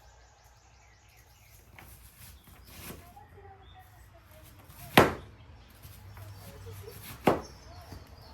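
Kitchen knife striking a cutting board while dicing an onion: a few light knocks, then two loud sharp chops a couple of seconds apart.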